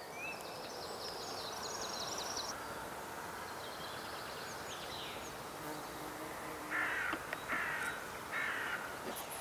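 A crow cawing three times in quick succession near the end, harsh calls over steady outdoor background noise.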